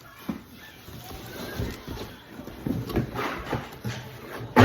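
Cookware and its packaging being handled and unpacked: irregular rustling with light knocks, ending in one loud sharp knock as a piece is set down or falls.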